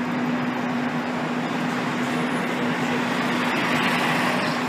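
A fire engine's diesel engine running with a steady hum as the rig pulls out of the firehouse, over a haze of street noise.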